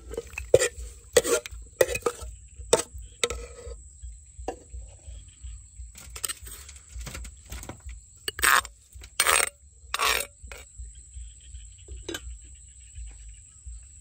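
Utensils knocking and clinking against a bowl as a spicy salad is tossed and mixed: several sharp knocks in the first few seconds, then three louder, longer ones about eight to ten seconds in. A steady thin high-pitched tone runs underneath.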